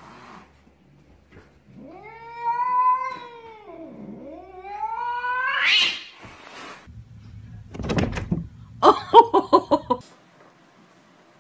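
Black cat yowling: a long drawn-out caterwaul that rises and falls, then a second call sliding up to a high pitch. Later a rapid run of short, loud pitched sounds follows, the loudest part.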